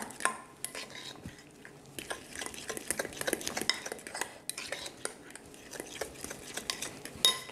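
Metal fork stirring a thick batter of mashed banana, egg and oat flour in a glass dish, with many irregular clicks and scrapes as the tines hit the glass.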